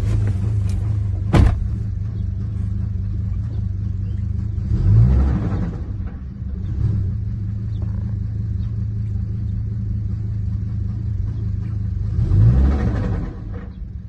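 Hummer H3T's 3.7-litre inline five-cylinder engine running, heard from inside the cab, blipped up in revs twice, about five seconds in and again near the end. There is a single sharp click about a second and a half in. This is the engine that had spun its cylinder 5 connecting-rod bearing.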